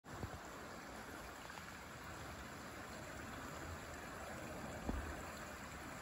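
Steady rush of flowing river water, with a soft low bump about five seconds in.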